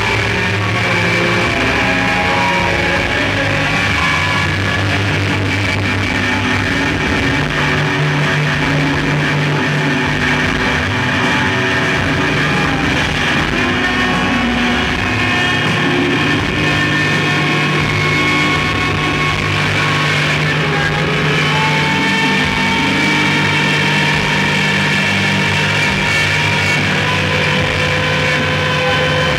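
Live rock band playing a loud noise passage: electric guitars and bass holding sustained, droning tones, with the low note shifting pitch a few times and no clear drumbeat.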